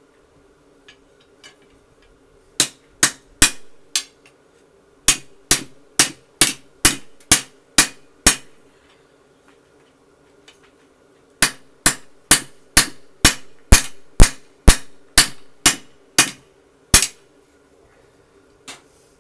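Hand hammer forging a red-hot lawnmower blade on an anvil into a bowie knife: two runs of about a dozen sharp blows each, roughly two a second, with a pause of about three seconds between them. A steady low hum runs underneath.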